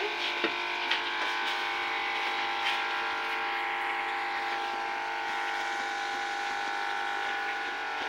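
Steady machine hum at several fixed pitches over the soft hiss of meat and potato curry simmering in a karahi on a gas burner, with a couple of light clicks about half a second and a second in.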